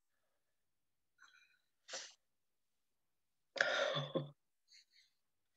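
A person's short, sharp breathy vocal burst about three and a half seconds in, ending in voice, after a brief sniff-like breath near two seconds; otherwise near silence.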